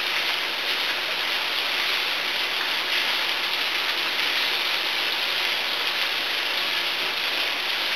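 Onions, eggplant and green pepper sizzling steadily in a frying pan while being stirred: an even hiss of vegetables sautéing.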